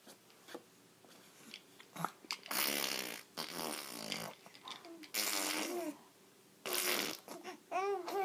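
A baby making funny mouth noises: four spluttering, breathy bursts, with short squeaky calls that bend in pitch in between and near the end.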